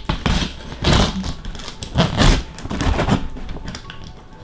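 Cardboard package being handled and opened: a string of irregular rustles, scrapes and knocks.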